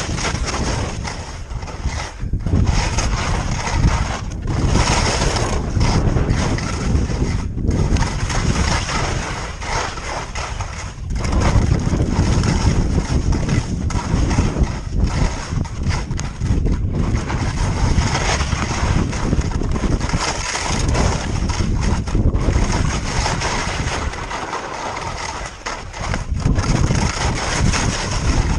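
Wind rushing over the camera microphone mixed with skis scraping on firm snow through a run of quick turns. The noise dips briefly several times between turns.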